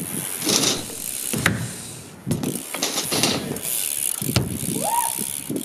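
BMX bike rolling on concrete skatepark ramps: tyres rolling and the rear hub's freewheel ratcheting while the rider coasts, with a few sharp knocks as the bike takes off and lands.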